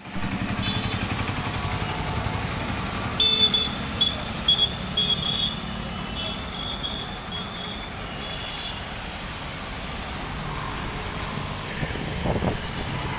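Street traffic on a wet road: vehicle engines running steadily, with bursts of short high-pitched beeps between about three and nine seconds in.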